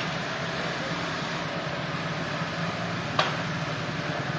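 Sawmill machinery running steadily with a low, even hum and no cutting heard, with one sharp click about three seconds in.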